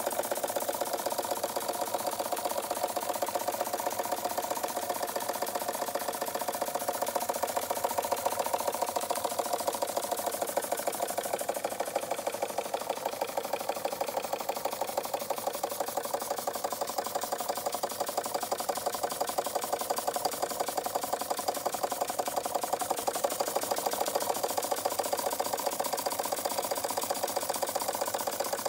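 Bing Vesuv toy steam engine, about 1903, running steadily under steam: a fast, even ticking and chuffing from its small horizontal engine and flywheel.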